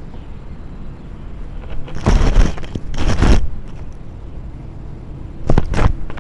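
A rabbit's face and fur rubbing and bumping against the camera, heard as loud scraping rustles right on the microphone: two longer scrapes about two and three seconds in, and two quick knocks near the end, over a steady low rumble.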